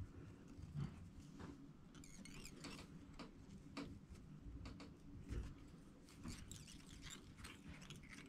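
Faint, scattered ticks and rustles of hands handling a feather and fly-tying thread on a ball-head jig, just above near silence.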